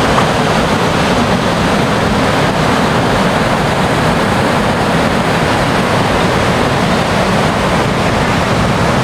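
Ocean surf breaking on a rocky beach, heard as a steady, loud wash of noise.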